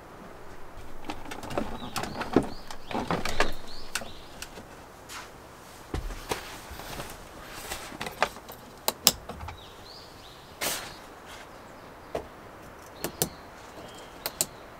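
Rustling of a sleeping bag and bedding being handled, then a mesh insect screen being put up, with scattered sharp clicks and knocks and a low thump about six seconds in. Birds chirp faintly in the background.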